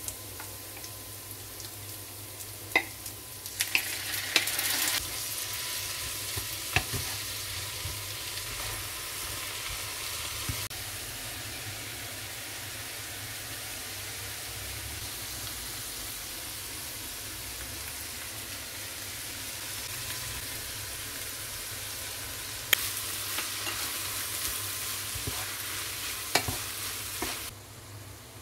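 Bean sprouts and a minced pork and diced vegetable filling sizzling in a non-stick frying pan while a wooden spatula stirs them. The sizzle grows louder in two stretches, about three seconds in and again near the end, with a few sharp clicks scattered through.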